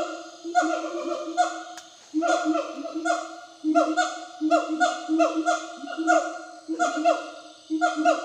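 Wild gibbons calling: a run of repeated hooting notes, several overlapping, many falling in pitch at the end.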